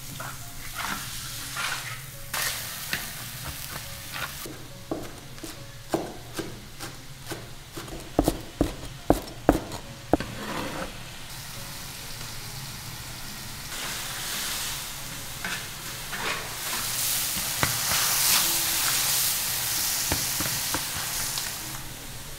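Carrot fried rice sizzling in a large iron wok as a metal spatula stirs and scrapes through it. About eight to ten seconds in comes a run of sharp knocks, and the sizzle grows louder and denser through the second half.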